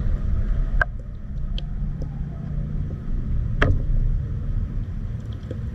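Steady low rumble of river water moving around an underwater camera, with a few sharp clicks on top, the loudest about a second in and just past the middle.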